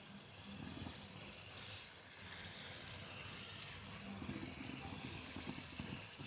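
Samosas deep-frying in hot oil in a kadhai: a steady sizzle of bubbling oil.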